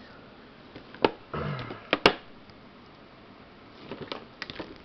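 Handling noise from the plastic-packaged hair colour kit being moved in the hand: scattered clicks and taps, the sharpest about two seconds in, with a patch of rustling before it and a cluster of small ticks near the end.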